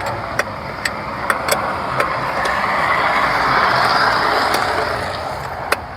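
A passing vehicle, a broad rushing noise that swells to a peak about four seconds in and then fades away. Scattered light clicks sound over it.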